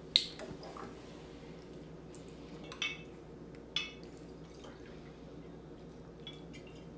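Tequila poured from a glass bottle into a small measuring glass: a faint trickle and drip of liquid, with a sharp knock right at the start and light clinks of glass on glass, two about three and four seconds in.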